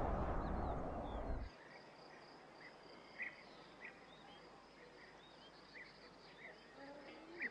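BMW 7 Series driving away, its road and engine noise fading, then cutting off about one and a half seconds in. What follows is a faint outdoor ambience: a steady high insect trill with scattered short bird chirps.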